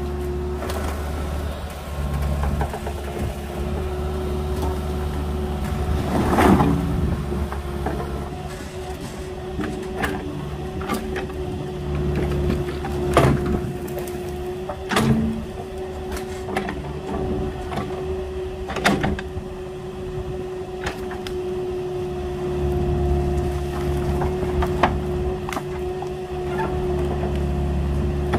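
Agricultural excavator's diesel engine running steadily while it works, with a constant hum and several sharp clanks and knocks at irregular intervals.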